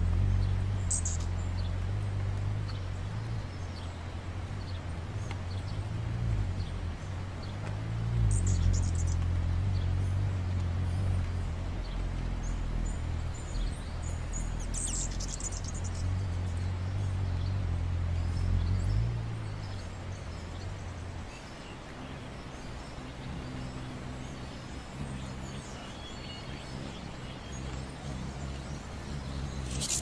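Hummingbirds hovering: a low, steady wing hum that fades down about two-thirds of the way through, with a few short, high chirps.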